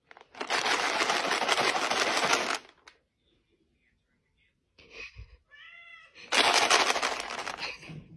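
Two bursts of loud, rapid rattling noise, the first about two seconds long and the second about a second and a half, with a short cat meow just before the second burst.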